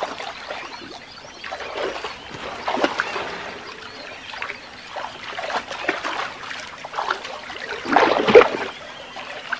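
Shallow water splashing, sloshing and dripping as a hippo wades and crocodiles feed and shift in the pool, with the loudest splash about eight seconds in.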